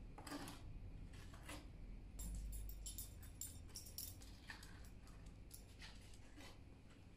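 Faint scrubbing and scraping strokes of a gloved hand cleaning out a stone recess under a cupboard. A light jingling clatter joins in about two to four seconds in.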